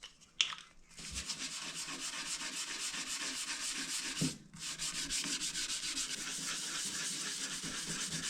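Toothbrush scrubbing toothpaste back and forth over the greasy front of a toaster oven: rapid, scratchy bristle strokes, pausing briefly about four and a half seconds in.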